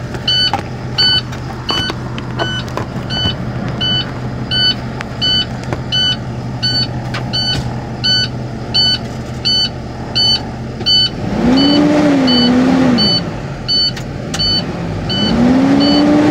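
Box truck diesel idling, heard from inside the cab, with a dashboard warning alarm beeping steadily about once every three-quarters of a second while the air brake pressure is still building. Twice in the second half the engine is briefly revved up and settles back.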